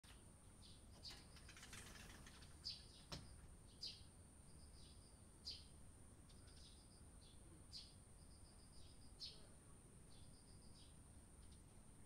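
Eurasian tree sparrows chirping faintly: short chirps every second or so, with several quick, evenly spaced runs of rapid chirps. A single sharp knock sounds about three seconds in.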